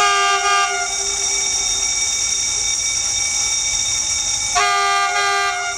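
D20E-class diesel locomotive sounding its multi-tone air horn in two short blasts, each just under a second, about four and a half seconds apart. The locomotive's engine rumbles steadily underneath.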